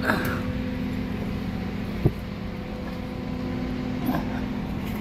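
Steady mechanical drone of a running motor or engine, even in level, with one sharp metallic click about two seconds in.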